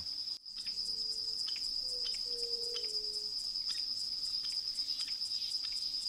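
Steady high-pitched insect trill, cricket-like, running without a break, with a few faint low drawn-out notes about a second in.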